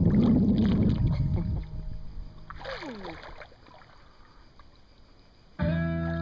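Pool water splashing and sloshing around a person moving in it, dying away after about a second and a half. Guitar music starts abruptly near the end.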